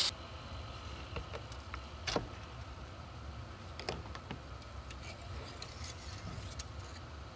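A few faint clicks and taps as a thin homemade wire dipstick is handled and drawn out of the CVT fill tube, over a low steady hum.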